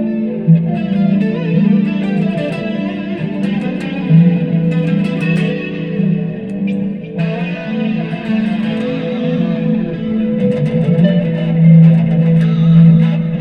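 Dean Avalanche C7 electric guitar with Seymour Duncan pickups played through a Line 6 Spider Jam amp: a run of sustained notes and chords with effects.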